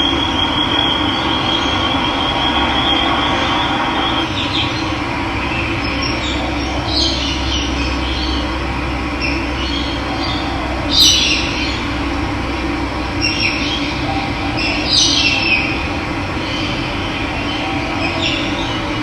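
Running water with a steady rush, and birds calling in short high chirps every second or two, one louder call about eleven seconds in. A thin high trill carries on through the first few seconds.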